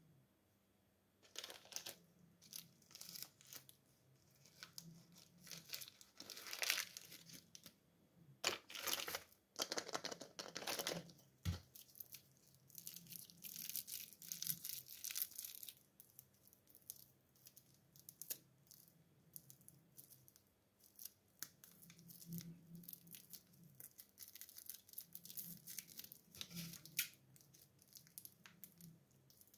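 A lollipop's plastic wrapper crinkling and tearing as fingers twist and pull it open, in irregular bursts of rustling with short pauses. There is one sharp click partway through.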